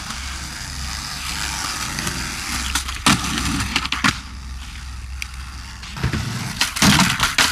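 Skateboard wheels rolling on concrete, with sharp clacks of the board hitting the ground about three and four seconds in, and a cluster of clattering impacts near the end.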